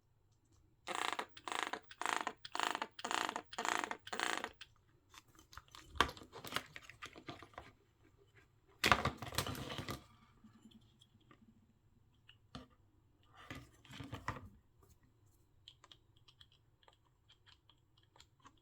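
Small plastic parts of a breast pump being handled during disassembly: a quick run of about nine noisy strokes, then scattered clicks and a louder scrape about nine seconds in.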